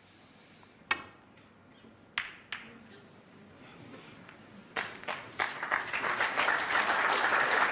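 A few sharp clicks of snooker balls being struck, about a second in and again just after two seconds, then the arena audience applauding from about five seconds in, growing louder.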